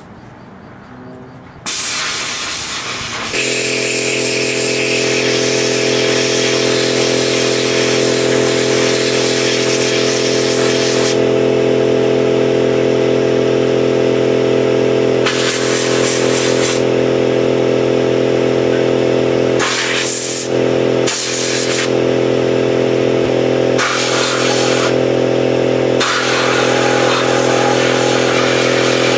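A Harbor Freight handheld sandblast gun hisses loudly in blasts of air and grit against a rusty steel motorcycle frame: one long blast, then several short ones. An air compressor kicks on about three seconds in and runs with a steady drone under the blasts.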